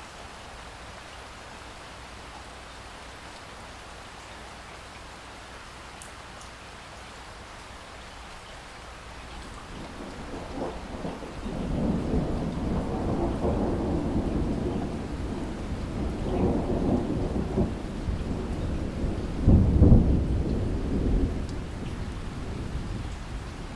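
Steady heavy rain falling, with a long low rolling rumble that builds from about ten seconds in, peaks near twenty seconds and then dies away.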